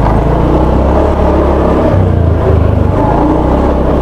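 Motorcycle engine running while riding, heard close up as a steady low drone.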